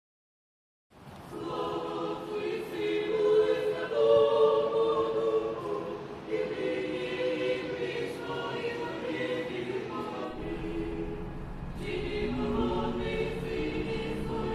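Choir singing unaccompanied in long held chords, entering after about a second of silence, with brief breaks between phrases. A low rumble joins beneath the singing about two-thirds of the way through.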